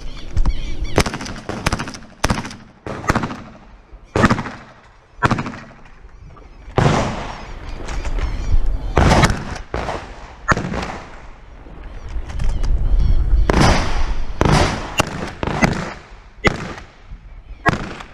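Benelli Nova pump-action 12-gauge shotgun fired repeatedly in a practical shooting stage: loud echoing shots, mostly half a second to a second and a half apart, with a few longer gaps between strings.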